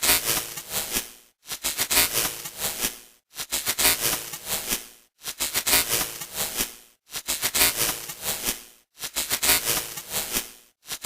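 TV static sound effect of a malfunctioning television. It comes in noisy bursts a little under two seconds long, each cut off by a brief silence and repeating about every two seconds.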